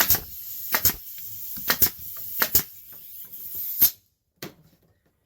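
A nail gun firing about five times in four seconds, most shots a quick double snap, as the top piece of a plant stand is nailed down.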